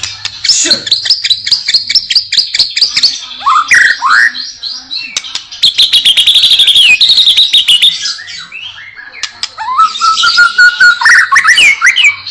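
White-rumped shama (murai batu) singing a loud, varied song full of isian, phrases mimicked from other birds. Rapid chattering trills alternate with short rising whistles, and near the end comes a long lower rising whistle followed by quick upward notes.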